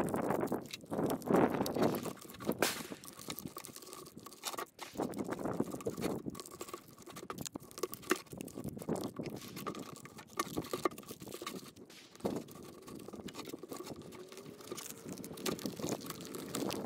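Rustling and crinkling of sealed plastic medical packets and nylon webbing being handled and slotted into an organizer by hand, with irregular small clicks and knocks.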